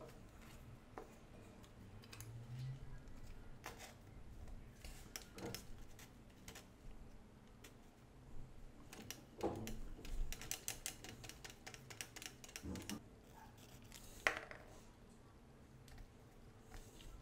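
Faint clicks and taps of hands handling small plastic and wooden parts on a board, with a quick run of clicks about ten seconds in and one sharper click a little after that.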